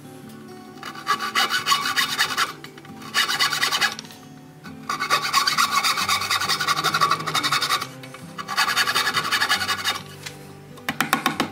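A thin-bladed frame saw cuts into hardwood in quick back-and-forth strokes. There are four runs of sawing with short pauses between them.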